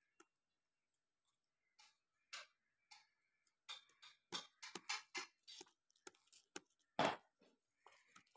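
A goat pulling at and chewing fresh green fodder: a faint, irregular run of crisp clicks and rustles, thickest in the middle and loudest about seven seconds in.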